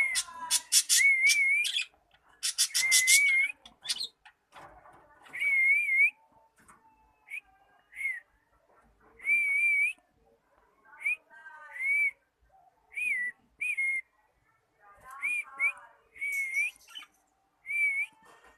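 Cockatiel whistling short, wavering notes again and again, with a burst of rapid raspy chatter under the first notes.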